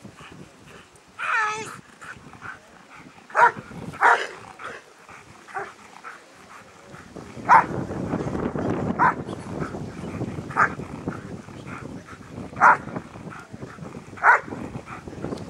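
German Shepherd dog barking at a protection helper in short, sharp single barks, about seven of them spaced a second or two apart. There is a falling whine-like cry about a second and a half in. From about halfway, wind rushes on the microphone.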